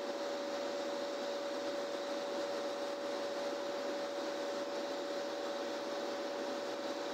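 Steady machinery hum with a constant mid-pitched whine from an ice plant's refrigeration compressor running, its suction line frosted over.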